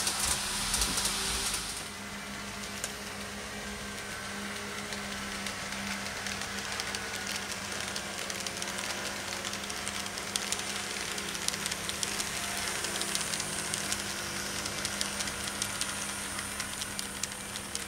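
N-gauge model electric train running on track round a curve, a faint motor whine under a steady hum, with the wheels ticking and clicking over the rails more and more as it comes closer. A hiss sounds at the start and cuts off about two seconds in.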